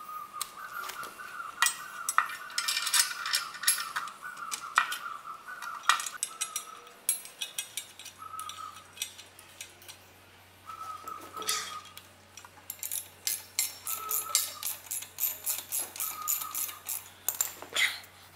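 Metallic clinks and taps as a steel lower crash bar is handled and fitted against a motorcycle engine, with bolts and washers knocking on the metal. Short bursts of a faint high tone come and go, and a low hum sets in about eight seconds in.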